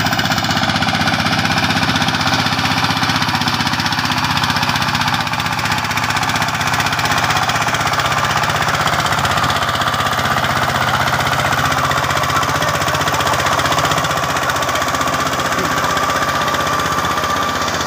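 Single-cylinder diesel engine of a two-wheel power tiller pulling a loaded trolley, running steadily with a loud, rapid knocking chug.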